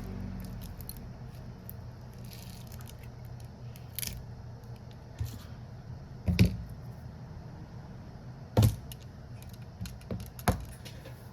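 Small hand tools and phone parts knocking and clicking on a workbench during a smartphone battery replacement: about five sharp separate clicks, two of them louder, over a steady low hum.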